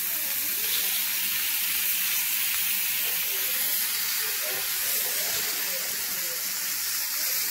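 Chicken breasts sizzling steadily in an oiled grill pan while they are turned over.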